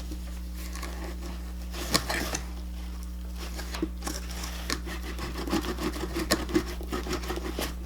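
A slime shipping package being worked open by hand: scattered rustling, crinkling and tearing, busiest in the second half, over a steady low hum.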